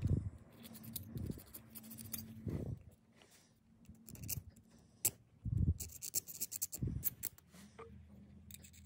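Hobby knife blade scraping dried wood glue off a metal fret-pressing caul in short, irregular strokes, with a few dull knocks from handling. The glue is stuck on firmly.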